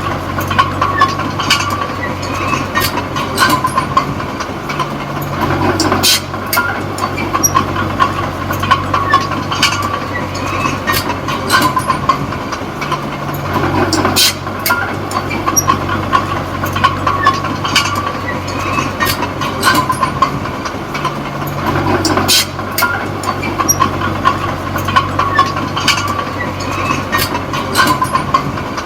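Diesel engine of a small D20P crawler bulldozer running steadily, with many sharp metallic clanks from its tracks. The engine note drops and comes back about every eight seconds.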